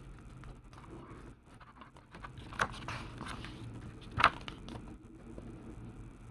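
Paper catalogue being handled, with rustling and crackling of its pages. Two sharper crackles stand out, about two and a half and four seconds in.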